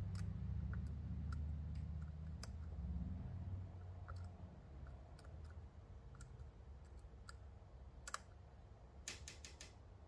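Faint, scattered small metallic clicks of a dimple pick working the pins inside a Mul-T-Lock Classic pin-in-pin cylinder held in a false set, with a few sharper clicks near the end. A low rumble runs under the clicks and fades after about four seconds.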